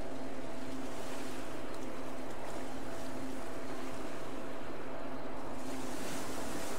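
Steady whooshing background noise with a faint low hum underneath, swelling briefly near the end.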